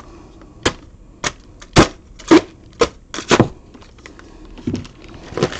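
Knife blade cutting through a plastic poly mailer in short strokes, each giving a sharp snap, about eight of them roughly half a second apart with a short pause near the end.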